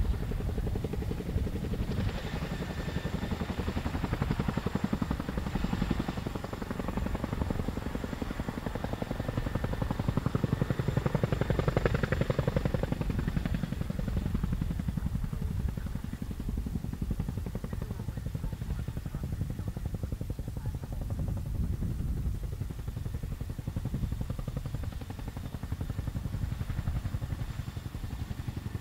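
RAF Chinook tandem-rotor helicopter hovering and flying low, with a steady rapid beating of its twin rotors over engine noise. It grows loudest about ten to thirteen seconds in, then eases slightly.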